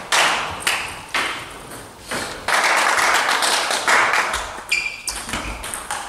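Table tennis ball clicking sharply off bats and table, each hit echoing briefly in the sports hall. In the second half come low thuds of footwork and a few short squeaks, which fit shoes on the hall floor.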